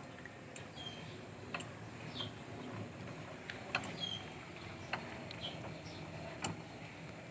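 Faint, irregular metal clicks about a second apart from a can-opener-style oil filter cutter being worked around the steel can of an oil filter, with a few short bird chirps.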